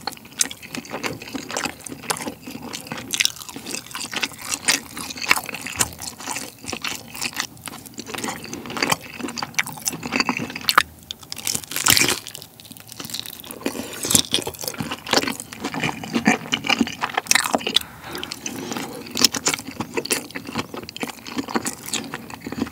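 Close-miked eating of tteokbokki rice cakes and a battered fried egg in red sauce: wet, sticky chewing and mouth clicks, with a loud bite about twelve seconds in.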